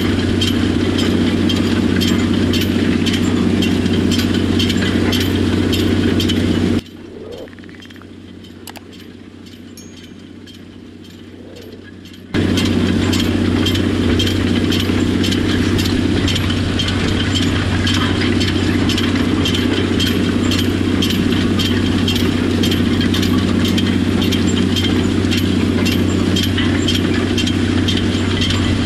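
Tractor engine running steadily under load while a towed steel tillage or planting implement rattles and clinks rapidly over the field. About seven seconds in, the sound abruptly drops to much quieter for about five seconds, then returns at full level.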